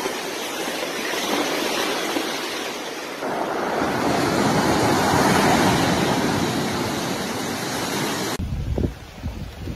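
Storm surf crashing ashore: a steady rush of breaking waves and churning water that grows louder about three seconds in. Near the end it cuts abruptly to gusts of wind buffeting the microphone.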